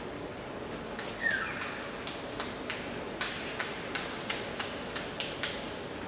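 Scattered handclaps from a sparse audience in a large hall: about a dozen irregular claps over roughly four seconds, over the hall's steady hum. A short falling squeak comes about a second in.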